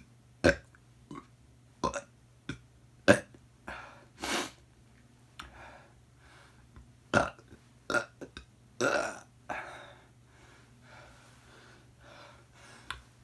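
A person burping again and again: many short burps, with longer drawn-out ones about four and nine seconds in.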